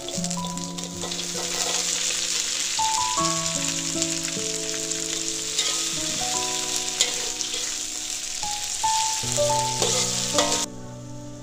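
Long beans, shallots, garlic and chilli sizzling in hot oil in a metal wok, stirred with a metal spatula that scrapes and clicks against the pan. The sizzle cuts off abruptly near the end, leaving background music with slow melodic notes that plays throughout.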